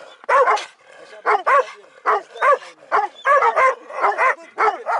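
Leashed laika-type hunting dog barking and yelping beside a shot bull moose: short, high yelps that rise and fall in pitch, in quick clusters of two or three about once a second.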